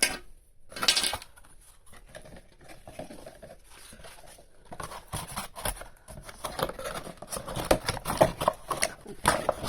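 Hands opening and handling a toy doll's packaging: a run of rustles, crinkles and small clicks, busiest in the second half.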